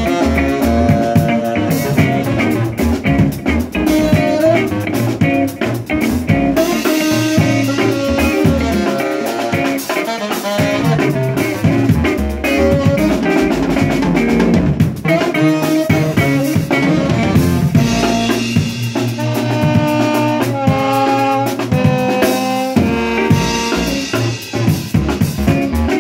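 Live band playing: a saxophone carrying a melody over a drum kit keeping a steady beat.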